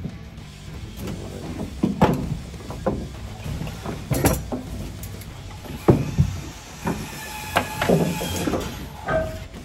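Irregular knocks and clatter of hand work with PVC drain pipe and a cordless drill against wooden attic framing, over a steady low rumble.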